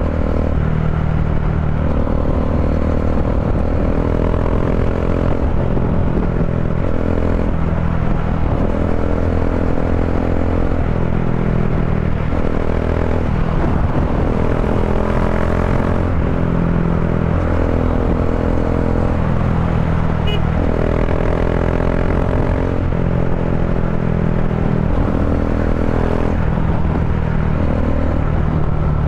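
Bajaj Dominar 400's single-cylinder engine running steadily at highway cruising speed, about 85 km/h, through an Akrapovic slip-on muffler with the catalytic converter replaced by a resonator.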